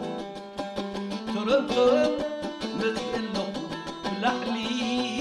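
A krar, the Eritrean bowl lyre, plucked in a quick, steady rhythm, with a few sliding notes about one and a half to two seconds in.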